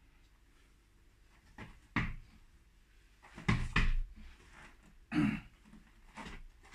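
Knocks and clanks of a loaded barbell being unracked from a squat rack: one knock about two seconds in, the loudest double clank about halfway through as the bar lifts off the hooks, and a shorter clatter after it.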